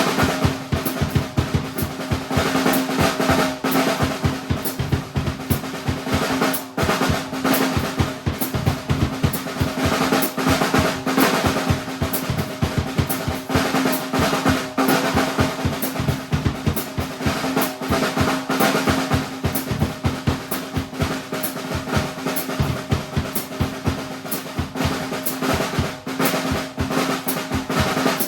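Drum kit played in a fast, dense improvised groove: rapid snare and bass drum strokes and rolls with no breaks, over a steady ring from the drum heads.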